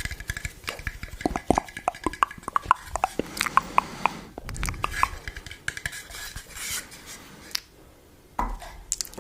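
ASMR trigger sounds: many quick, light taps and clinks of hard objects, some with a short ring, like utensils against dishes. The tapping stops for about a second near the end.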